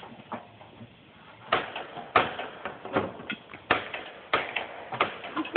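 Hammer driving nails, a string of about ten sharp blows at uneven intervals of roughly half a second, starting about one and a half seconds in.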